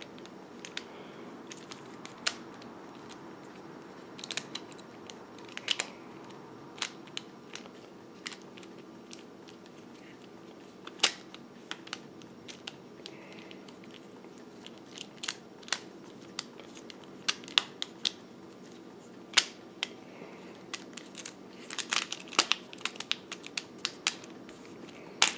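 Scattered light clicks and rattles of a metal saw chain and steel guide bar being handled and fitted onto a chainsaw drill attachment, with quicker clicks bunched near the end.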